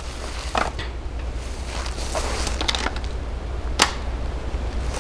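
Handling noise of a Hi-Point 995 carbine being picked up and readied to fire: a few light clicks and clacks, then one sharp metallic clack near four seconds in, over a steady low rumble. No shot is fired.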